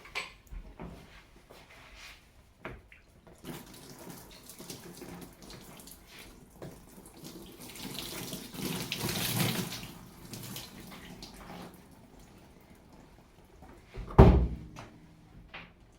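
Water running and splashing during cleaning, with scattered clicks and knocks of handling. It swells about halfway through, and a loud thump comes near the end.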